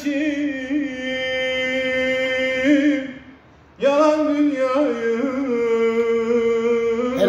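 A man singing unaccompanied in long, held, ornamented notes. One phrase ends about three seconds in, and after a short breath a second phrase begins.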